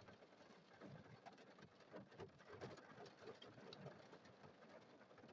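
Faint rain pattering on a car, heard from inside the cabin: light, irregular drops with no hail.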